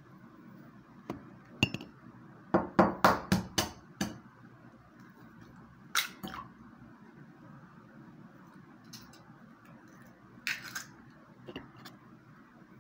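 A raw egg being cracked: a quick run of about six sharp taps of the shell against a hard edge, then a few single clicks and knocks as it is broken open into a ceramic bowl.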